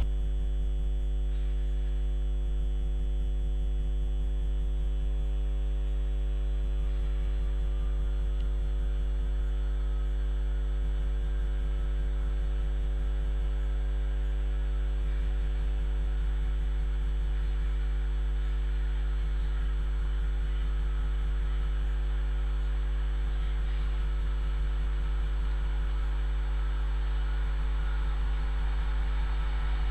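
A steady electrical hum with a stack of even overtones, unchanging in level throughout. Near the end a faint rushing noise grows underneath it as an electric train draws in.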